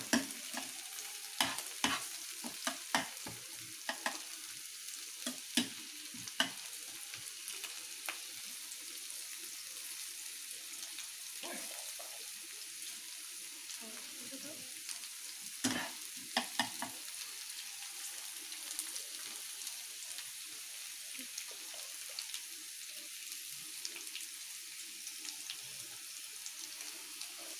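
Chopped green beans sizzling as they fry in oil in a pan, a steady hiss. A spatula knocks and scrapes against the pan as they are stirred, a run of knocks in the first several seconds and another about halfway through.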